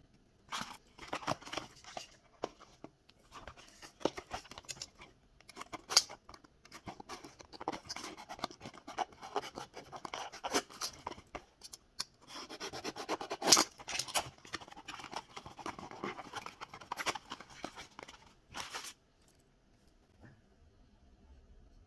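Small cardboard blind boxes and a card being handled and opened by hand: flaps and card rubbing and scraping, packaging rustling, with scattered sharp clicks and taps. The handling falls quiet near the end.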